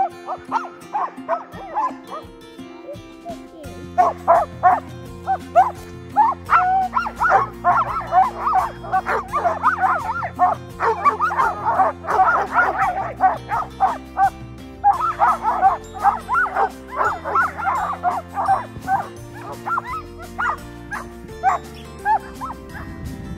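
Many sled dogs (Alaskan huskies) barking and yipping in quick, overlapping calls, thickest from about four seconds in until near the end. Background music plays underneath.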